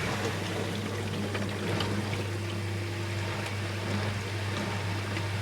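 Bosch dishwasher's circulation pump running with a steady low hum, water swishing and splashing through the tub as the wash cycle circulates after the fill.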